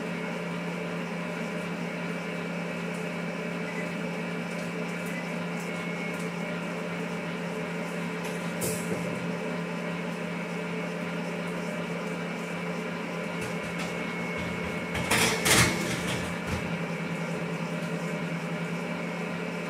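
Electric stand mixer running steadily, its motor giving a constant hum with a high whine, as it beats egg yolks. About fifteen seconds in, a couple of short clattering knocks stand out over the hum.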